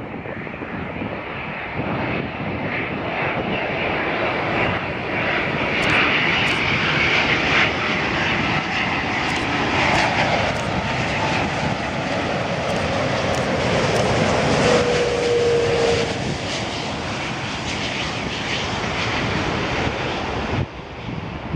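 A Boeing 787 Dreamliner's twin jet engines on landing approach, growing louder as the airliner passes low and close, with a whine that falls in pitch as it goes by. The sound drops off abruptly near the end.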